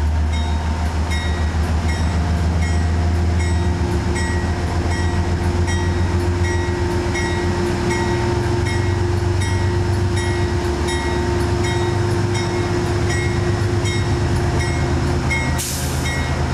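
Metro-North P32AC-DM diesel locomotive running as it creeps along the platform, its bell ringing steadily about one and a half strokes a second. The engine note shifts about halfway through, and a short hiss comes near the end.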